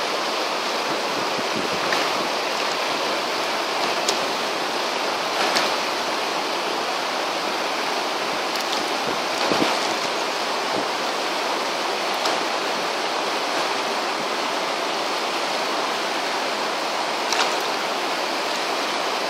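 Mountain stream rushing steadily over rocks, with a few faint clicks now and then.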